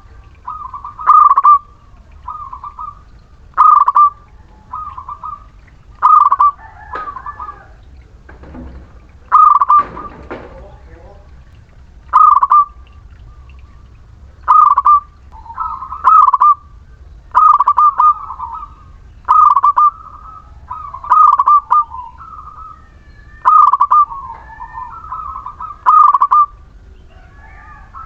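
Zebra dove (perkutut) cooing, its song repeated over and over in short phrases of a few rolling coos, one every one to two seconds.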